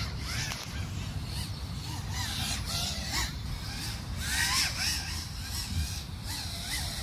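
Wind rumbling on the microphone, with birds calling in short chirps throughout.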